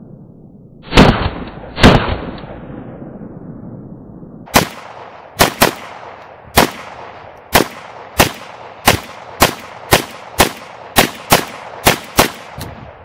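Norinco AK-47 rifle in 7.62x39mm firing semi-automatic. Two very loud shots come about a second apart near the start, then after a pause a string of about fourteen shots at roughly one a second, a few of them in quick pairs, each with a short echo.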